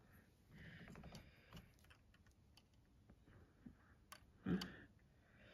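Faint clicks and rubbing of LEGO plastic pieces being handled as a minifigure is set onto the dragon model, with one short louder rustle about four and a half seconds in.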